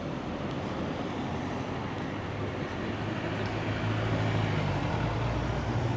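A motor vehicle's engine hum growing louder as it approaches, over a steady rush of background noise.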